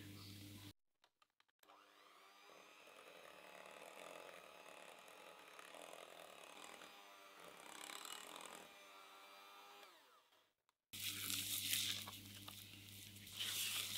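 Electric hand mixer running with its beaters in a glass bowl, mixing sifted flour and cocoa into cake batter, its pitch dipping and rising a little as it works. It stops, and near the end a silicone spatula scrapes and folds the thick batter around the glass bowl, louder than the mixer.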